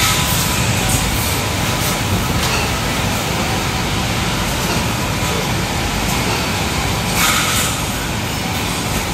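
Steady rushing machine noise in a closed pig farrowing barn, typical of its ventilation fans, with a brief sharper sound about seven seconds in.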